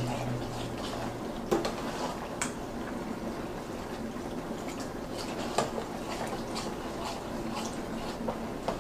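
Spoon stirring a wet macaroni-and-cheese mixture of milk and egg in a metal pot: soft wet sloshing, with a few sharp clinks of the spoon against the pot. A low steady hum runs underneath.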